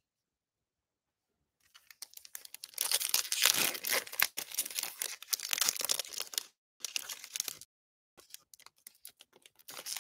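A foil trading-card pack being torn open and crinkled, starting about two seconds in. Lighter rustling and small clicks follow near the end as the cards are drawn out of the wrapper.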